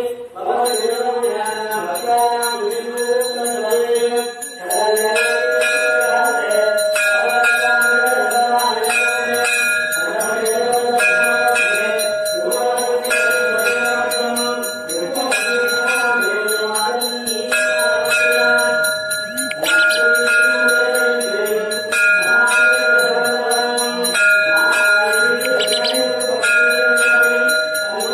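Temple bells rung rapidly and continuously during the lamp-waving arati, with sustained ringing tones and a pattern that recurs about every two seconds.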